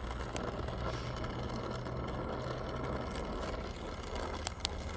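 Brazing torch flame burning with a steady low rush while heating a copper refrigerant line joint for brazing. A couple of light clicks near the end.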